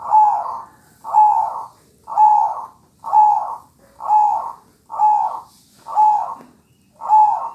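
Zebra dove (perkutut) cooing in its singing bout: eight evenly spaced coos, about one a second.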